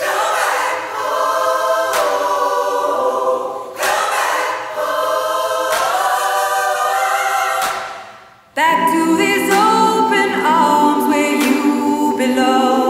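Song intro of layered, choir-like vocal harmonies, with a sharp percussive hit roughly every two seconds. The voices fade away about eight seconds in, then come back fuller with lower voices added.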